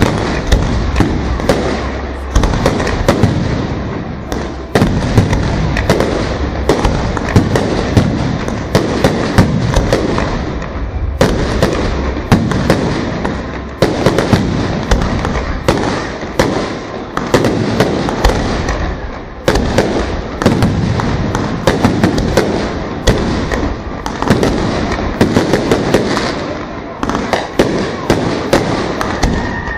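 Fireworks display: aerial shells bursting in rapid succession, several bangs a second, over a continuous rumbling crackle.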